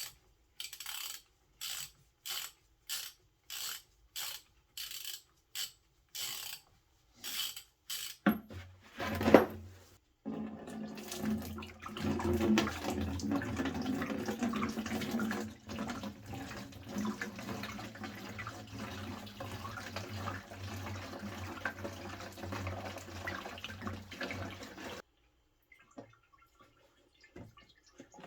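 Fluid draining from the car in a steady pouring stream for about fifteen seconds, stopping suddenly, then dripping. Before it come short repeated rasping strokes, about two a second.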